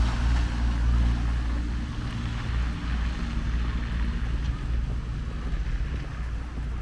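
Street traffic: a motor vehicle's low engine rumble, slowly fading as it moves off.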